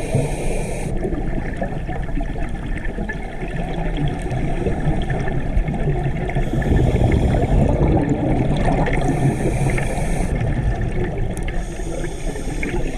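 Underwater sound through a diver's camera housing: a steady rumble of water noise with fine crackling, and a hiss that comes and goes every few seconds, in the rhythm of a scuba regulator's breathing cycle.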